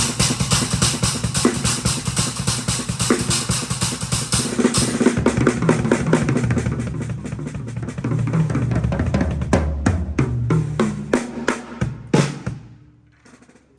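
A drum kit played in a fast, busy run of snare, bass drum and cymbal hits, with lower pitched drum tones coming in during the second half. It ends on one last strong hit near the end and dies away.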